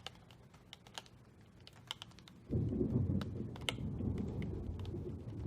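Thunder: a low rumble that breaks in suddenly about two and a half seconds in and keeps rolling, louder than anything before it. Scattered light ticks come before it.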